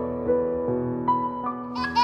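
Soft piano background music, held notes changing about every half second. Near the end a baby starts laughing over it.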